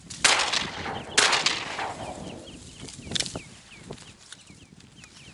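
Two shotgun shots about a second apart, each dying away over most of a second, fired at ducks coming in over the marsh. Short high bird calls repeat steadily underneath.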